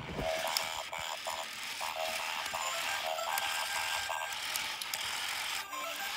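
Two toy robots running, their small geared motors ratcheting as their eyes move, with a rapid run of short electronic beeps and a few stepped tones near the end.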